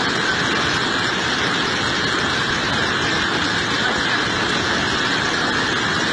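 Muddy flash-flood river rushing over boulders, a loud, steady, unbroken rush of water.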